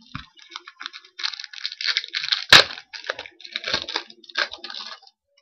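Foil wrapper of a Score hockey card pack crinkling and being torn open, a run of rustles with one sharp tear about two and a half seconds in.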